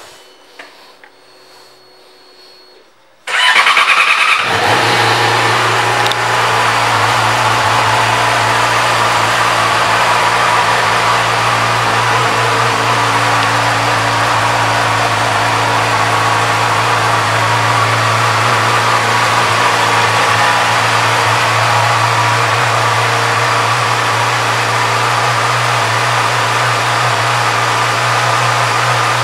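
2016 Yamaha YZF-R6's 599 cc inline-four engine starting about three seconds in, flaring briefly, then idling steadily.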